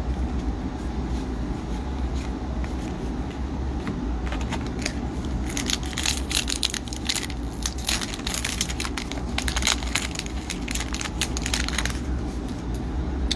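Crinkling, crackling handling noise from a trading card pack and its cards being sorted, densest from about five to twelve seconds in, over a steady low hum.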